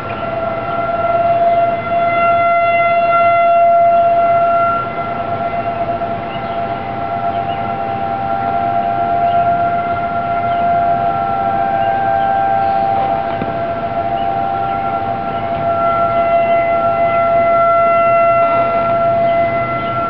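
Outdoor emergency warning siren sounding a long steady tone, its loudness slowly swelling and easing, with a second slightly higher tone joining in the middle.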